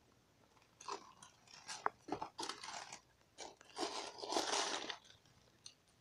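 Shoebox tissue paper being pulled back and handled, rustling and crinkling unevenly, starting about a second in.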